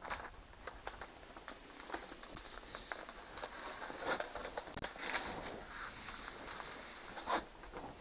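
Sheet of self-adhesive wood-grain waterproof wallpaper rustling and crinkling as its paper backing is peeled off and the sheet is laid onto a tabletop, with many small scattered ticks and crackles.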